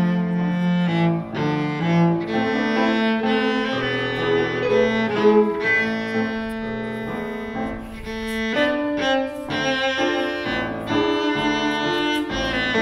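Background music: a bowed-string piece with held notes that change every second or so.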